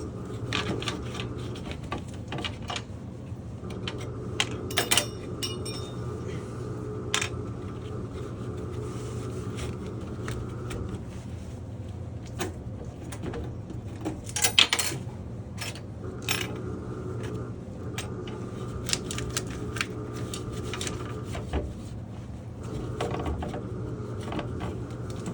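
Scattered light metallic clinks and handling noises of small parts and tools, over a steady low mechanical hum. The loudest cluster of clinks comes a little past the middle.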